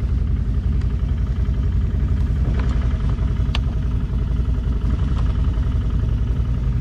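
ATV engine running steadily, a loud low drone, with a couple of short clicks around the middle.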